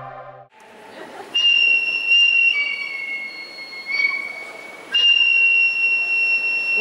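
High, sustained whistle-like tones opening the dance routine's music. A long note starts about a second and a half in, steps down to a lower note, fades, and the higher note returns about five seconds in.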